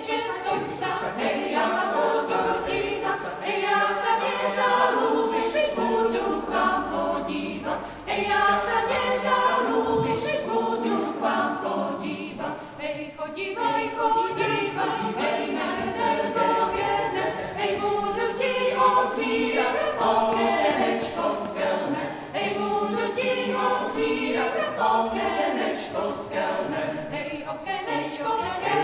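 Choir singing a cappella, several voices together in sustained melodic lines, with brief breaks between phrases about eight and thirteen seconds in.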